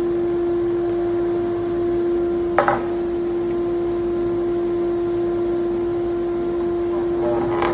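NOVA 56CA handheld electric drum sander running at steady speed with a constant motor whine. Twice, about two and a half seconds in and near the end, there is a brief scratchy burst as the drum head bites into the workpiece.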